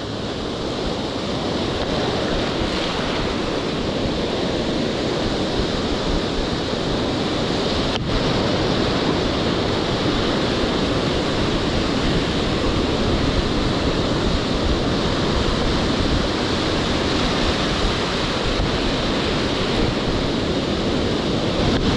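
Rough sea: surf breaking and washing on the shore without a break, with wind buffeting the microphone.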